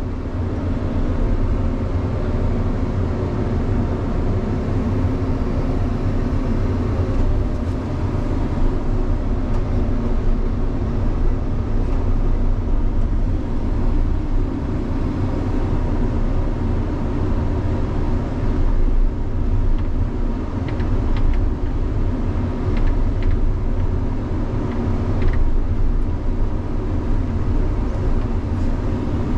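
Caterpillar 335 excavator's diesel engine and hydraulics running steadily while it backfills, a constant deep drone with a steady hum above it. A few faint light clicks come through about two-thirds of the way in.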